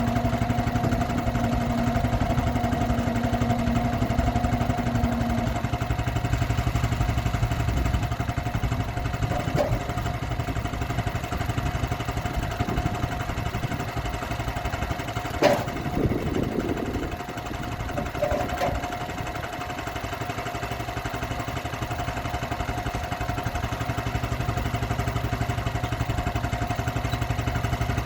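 Portable sawmill's engine running steadily while milling a log; a steady tone within it stops about five seconds in. A sharp knock about halfway through is followed by brief clatter.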